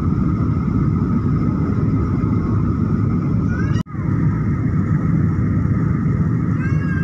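Steady low roar of a jet airliner's cabin in flight, the engine and airflow noise heard from a window seat over the wing. The sound cuts out for an instant a little before the middle.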